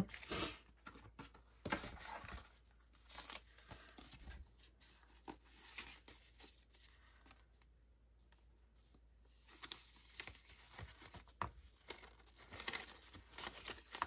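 Faint rustling and crinkling of paper and cardstock pieces being handled, turned over and laid down, with a few light taps on the work surface and a lull in the middle.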